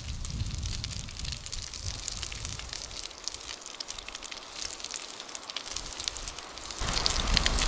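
Bacon sizzling and crackling in a steel frying pan over a fire pit, a dense run of fine spitting crackles that grows louder near the end.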